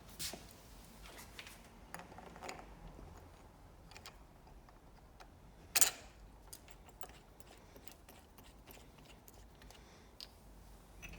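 Light, scattered clicks of metal bolts being handled and pushed through a dosing pump's head, with one sharper click a little before the middle.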